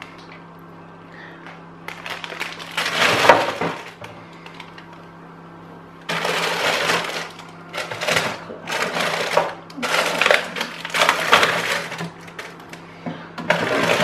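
Plastic food packaging crinkling and rustling as items are handled and put back in a fridge, in a run of noisy bursts, one early and several in a row after about six seconds.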